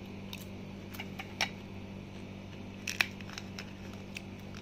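Crisp papad cracking in a few short, sharp snaps as pieces are broken off by hand, the loudest about three seconds in, over a steady low hum.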